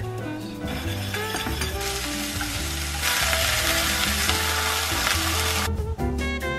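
Hot oil sizzling in pans: first as ground Sichuan peppercorn goes into oil for a sesame sauce, then louder as oyster mushrooms fry in a nonstick pan, turned with chopsticks. The sizzle cuts off suddenly near the end, with background music underneath throughout.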